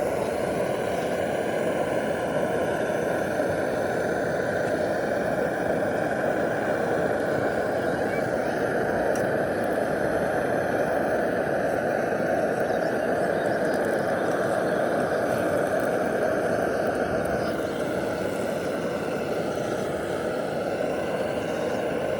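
Steady din of street traffic.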